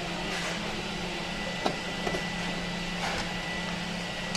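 Steady low background hum with a few faint clicks and taps of a screwdriver and screws being worked out of the grinder's metal cover.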